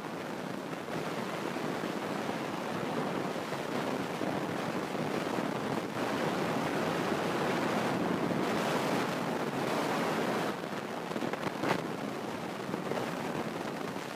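Steady rushing wind noise buffeting the phone's microphone, swelling louder in the middle, with one short knock near the end.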